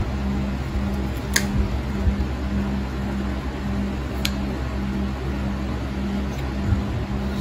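Steady low mechanical hum with a low tone pulsing about twice a second, and two sharp clicks, about a second and a half in and about four seconds in, as steel nail nippers cut into a thick, diseased toenail.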